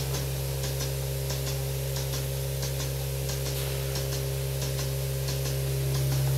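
Milking parlour machinery running: the vacuum system gives a steady low hum, and the milking-machine pulsators click in a regular rhythm, about two to three clicks a second.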